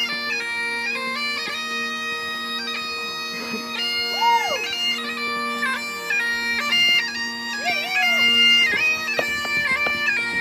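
Bagpipes playing a tune over a steady unbroken drone.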